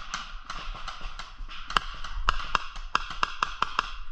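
Paintball markers firing: a rapid string of sharp pops. The pops turn louder and more distinct from about two seconds in, around nine of them at about four a second.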